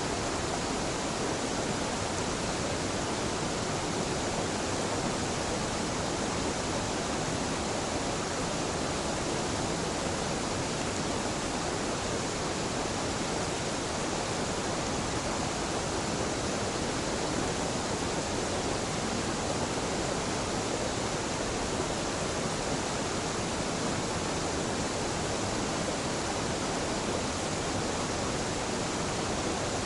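Waterfall on a mountain river pouring steadily: an even, unbroken rush of falling water.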